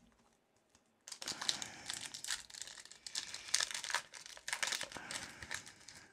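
Foil wrapper of a Pokémon booster pack crinkling as it is torn open by hand and the cards are pulled out. It starts about a second in as dense, crackly rustling.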